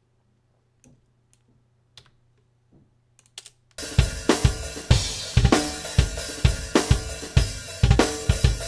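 A few faint clicks, then about four seconds in, playback starts of a multitrack acoustic drum kit recording: kick, snare and cymbals playing a steady beat. The drums have just been edited to line up with the grid.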